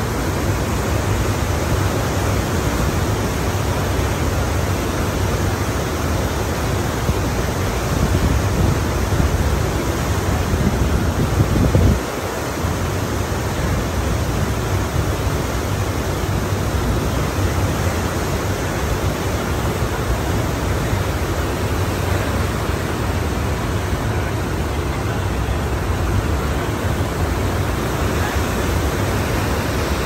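Ocean surf: a continuous wash of breaking waves, with a deep low rumble that drops away suddenly about twelve seconds in.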